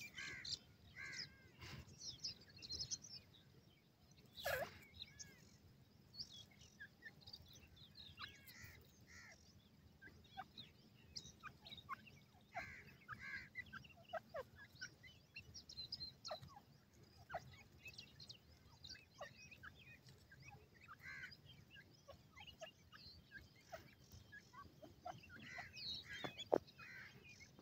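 Young grey francolins giving short, scattered chirps and peeps as they forage, faint and irregular, with a sharper call about four and a half seconds in and a louder one near the end.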